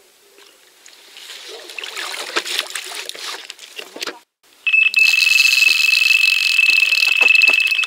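Water splashing as a carp is released from a landing net, then, about halfway through, an electronic carp bite alarm sounds a loud, continuous high tone: a fish has taken the bait and is running off with the line.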